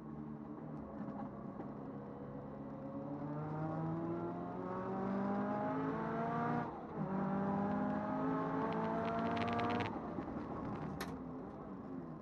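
Turbocharged Toyota 86's flat-four engine accelerating hard, its pitch climbing steadily, broken by a quick upshift just past halfway and climbing again before lifting off near the end. A single sharp click follows about a second later.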